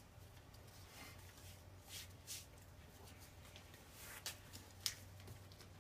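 Faint rustling of RockTape kinesiology tape being laid and pressed onto a patient's lower back, with a few short crackles, over quiet room tone.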